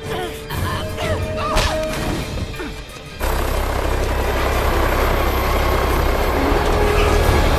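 Helicopter engine and rotor noise cuts in suddenly about three seconds in and runs loud and steady. Before it comes a quieter stretch of music with a couple of sharp hits.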